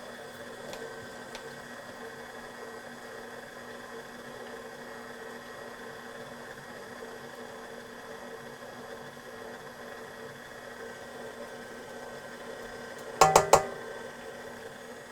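Electric mixer running steadily with an even motor hum, beating butter, cream cheese and vanilla together. About thirteen seconds in, a brief clatter of several sharp knocks.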